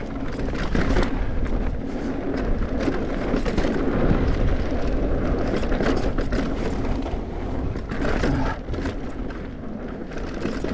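Mountain bike rolling fast down a dirt trail: a steady rumble of knobby tyres on dirt and rock, with frequent clicks and knocks from the chain and frame rattling over bumps.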